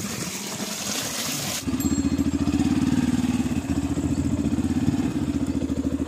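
A steady hiss gives way, about a second and a half in, to a Yamaha FZ motorcycle's single-cylinder engine starting up and running steadily at idle, with an even, rapid beat.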